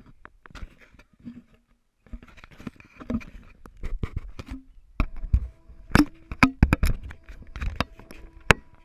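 Onboard sound of a radio-controlled car: irregular knocks, rattles and scraping as it bumps along, getting busier and louder about five seconds in, when a faint steady motor tone joins.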